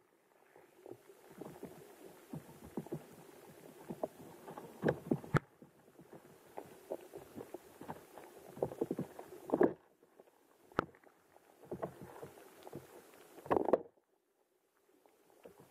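Muffled underwater sound picked up by a camera in a shallow river: irregular low knocks, clicks and short bursts of rushing noise. It breaks off and changes abruptly several times.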